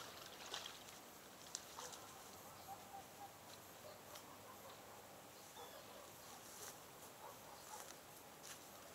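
Near silence: faint riverbank outdoor ambience with scattered soft ticks and a few short, faint chirps.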